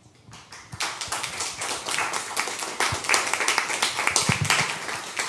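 Small audience applauding, many hands clapping fast and dense; it starts about half a second in, swells within a second, and thins out near the end.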